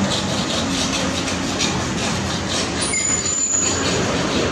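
Steady loud mechanical noise, with short high metallic squeals about three seconds in.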